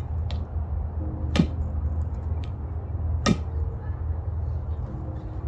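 A punctured Motorola phone battery venting smoke, with sharp cracks about a second apart, three loud and one faint, over a steady low rumble.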